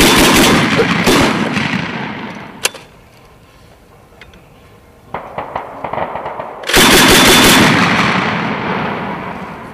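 Mk 19 40 mm automatic grenade launcher firing two short bursts about seven seconds apart. Each burst is a quick string of heavy reports that rolls off into a long echo. A few fainter sharp reports come in the gap between the bursts.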